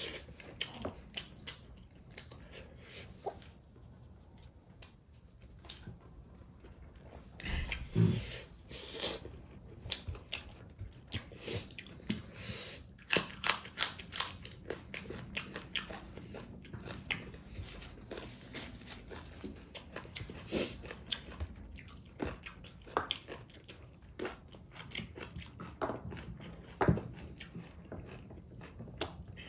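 Close-miked mukbang eating: irregular chewing with crunchy bites and clicks, a louder crunch about eight seconds in and a busier stretch around thirteen seconds.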